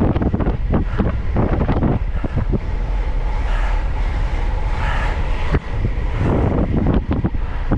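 Heavy wind buffeting a GoPro Hero 11's microphone on a fast bicycle descent: a loud, gusty rumble that flutters unevenly.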